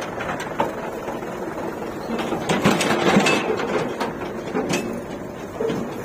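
JCB 3DX backhoe loader working under load as its rear bucket digs into the mud and lifts out, with scattered knocks and scrapes. It is loudest around the middle.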